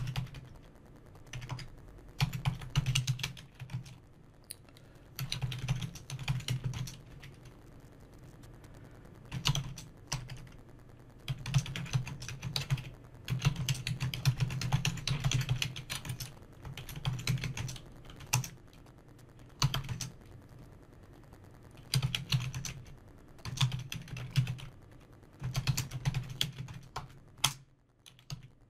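Typing on a computer keyboard: bursts of rapid keystrokes, each lasting a second or a few, with short pauses between them.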